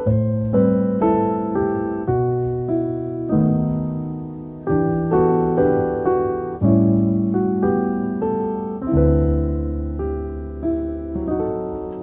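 Background piano music: a gently paced melody of struck notes and chords, each fading after it is played.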